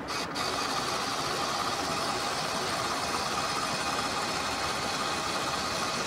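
Ray Allen electric trim servo running steadily under power, its small motor driving the linear actuator to swing the Rans S-21 elevator trim tab from full down toward full up, with a faint steady hum over the motor hiss.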